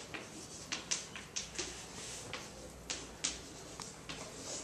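Chalk tapping and scratching on a blackboard as an equation is written: about ten sharp, irregular taps, bunched in the middle.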